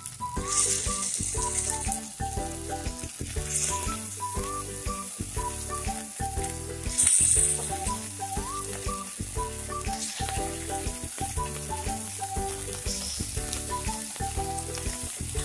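Oil sizzling in the hot cups of a cast appe pan as balls of potato-and-millet dough are set in to shallow-fry, with a brief louder hiss about seven seconds in. Background music with a plucked-sounding melody and bass plays along.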